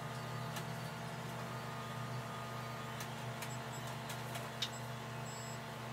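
Steady low hum of running endoscopy equipment during a gastroscopy, with a few faint clicks and one sharper click late on.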